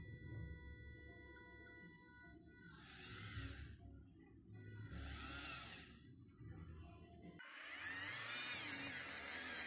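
Small electric motor of a soft exoskeleton glove's actuator whining in three bursts, two of about a second and a last, louder one of nearly three seconds, its pitch wavering up and down as it drives the glove's fingers to open and close.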